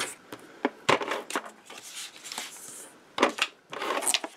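Scotch Advanced Tape Glider adhesive tape gun run over a paper panel: a series of sharp clicks and knocks, with a stretch of hissing tape laying down in the middle and paper being handled.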